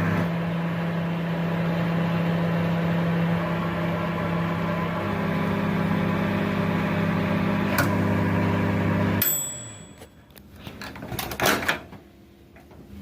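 Microwave oven running with a steady hum, with a click about eight seconds in. It cuts off suddenly at about nine seconds with a brief high tone, followed by several clicks and knocks.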